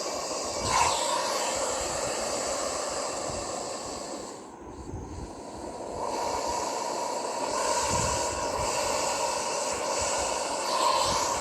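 Snake hissing: two long hisses with a short lull about five seconds in.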